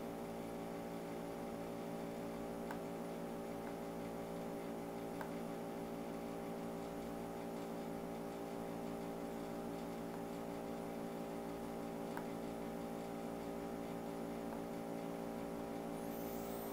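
Steady electrical hum made of several evenly spaced tones, with a few faint clicks.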